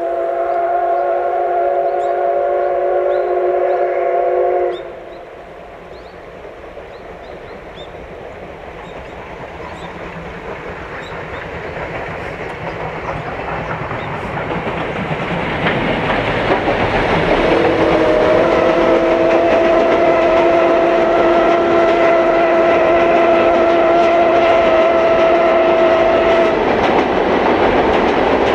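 C57-180 steam locomotive's whistle sounding a long blast of several tones together, then falling silent. The train's rumble and clickety-clack build as it approaches, and the whistle sounds a second long blast as the train passes close by.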